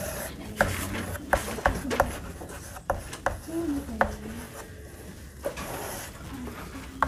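Chalk writing on a chalkboard: short scratchy strokes and taps, coming irregularly as each letter is drawn.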